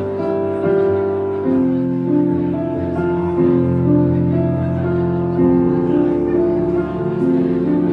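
Live band music led by a keyboard playing held chords that change every second or so, with low bass notes beneath.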